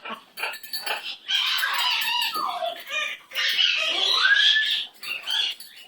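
Birds squawking: a few short scattered sounds, then a run of loud, harsh calls with some sliding pitches from about a second in until near the end.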